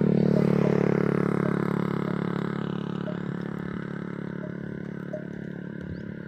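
An engine running at a steady pitch, loudest near the start and slowly fading.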